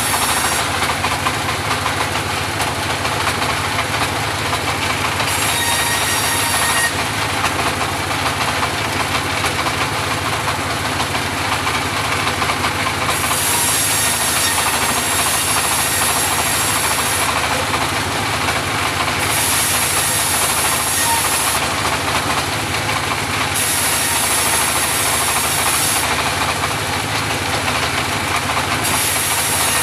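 Engine of a home-built portable bandsaw running steadily, with a higher hiss that comes and goes in stretches of a few seconds.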